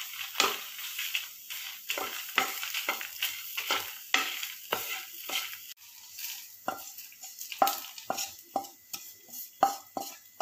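Wooden spatula stirring and scraping roasting spices (coriander seeds, dried red chillies, garlic, curry leaves, grated coconut) around a nonstick pan, in short scraping strokes about two a second over a light sizzle. About halfway through, the strokes become the spatula scraping the roasted mix out of the pan onto a plastic plate.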